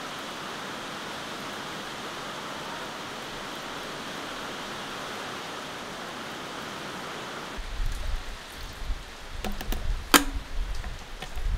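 Steady hiss of heavy rain. After about seven and a half seconds a low, uneven rumble comes in with a few sharp clicks, one of them loud about ten seconds in.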